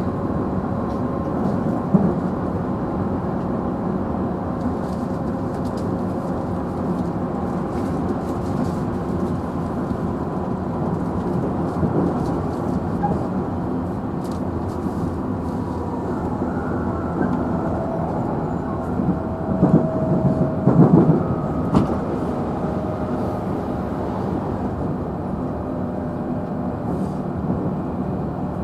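Inside a JR Central 311 series electric train's motor car running at speed: steady rolling noise with the traction motors' tonal whine. There is one sharp clack over a rail joint about two seconds in, and a quick cluster of clacks near the middle.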